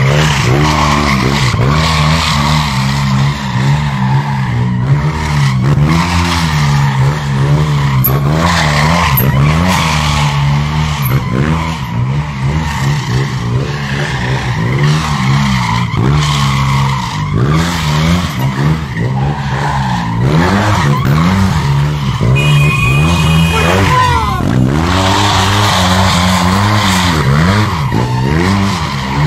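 Motor engines running and revving, their pitch rising and falling every second or so over a steady low drone.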